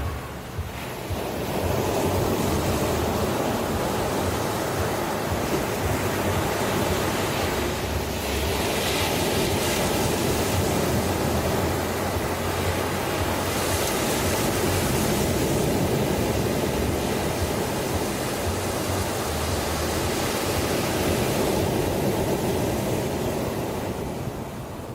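Ocean surf breaking and washing ashore in a continuous rush. It swells about two seconds in, hisses brighter a couple of times in the middle as waves break, and eases near the end.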